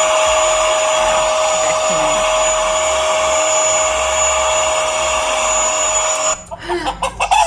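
Vacuum cleaner running steadily, a motor hum with a high whine held at one pitch, which cuts off suddenly about six seconds in.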